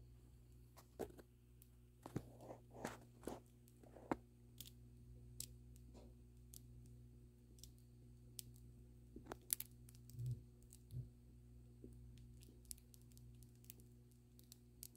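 Faint, irregular crackles and ticks from the crust of a crusty no-knead loaf, over a low steady hum.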